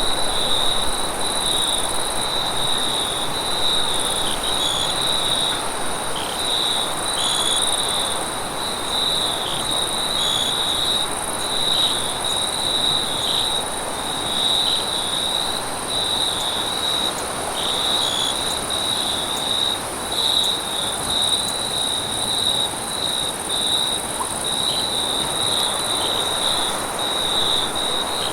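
Night-time forest insect chorus: a steady, high, continuous trill with small flickers in it, a second, higher insect band above it, and a soft, even hiss underneath.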